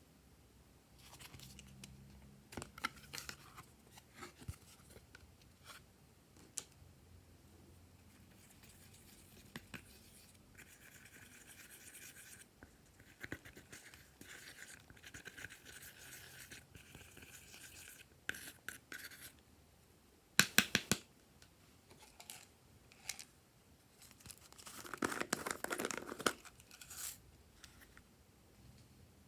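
Glossy slime being kneaded and stretched by hand, with sticky, wet crackles and clicks that come and go. The loudest are a couple of sharp pops about twenty seconds in and a thicker run of crackling a few seconds later.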